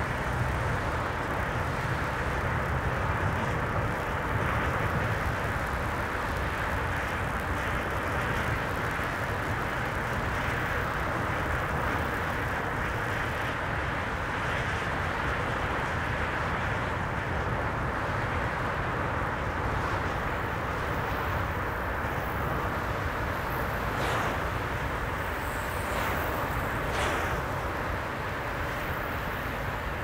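Steady road noise of a car driving at highway speed: tyre roar and engine drone, unbroken and even. A few faint brief swishes come about 24 and 27 seconds in.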